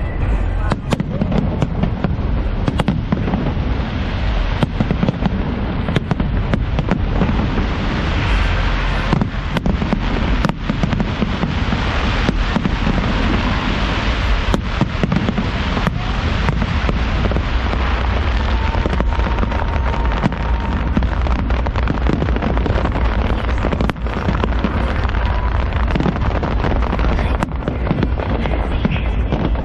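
Fireworks display going off without a break: many sharp bangs at irregular intervals over a dense, continuous rumble and crackle.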